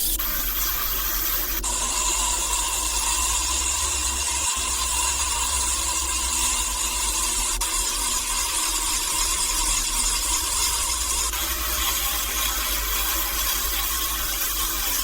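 Steady high-pitched whirring and hissing of a small power tool or machine, its tone shifting abruptly about a second and a half in and again about two-thirds of the way through.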